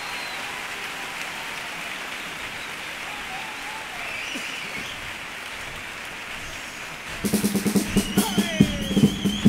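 Audience applauding, with a few faint shouts. About seven seconds in, the chirigota's band strikes up: drums beating a rhythm under a sustained pitched line that wavers high above.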